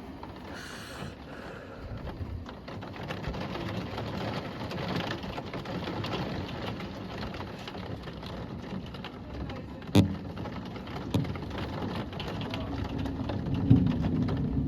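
Thunderstorm rain with a steady rushing noise that builds over the first few seconds, broken by sharp knocks about ten and eleven seconds in and a duller bump near the end.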